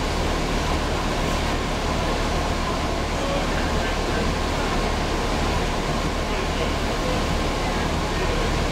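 Cabin noise inside a New Flyer Xcelsior XD40 city bus: the rear-mounted Cummins ISL9 diesel engine runs with a steady low drone under an even rush of noise, with a thin steady whine above it.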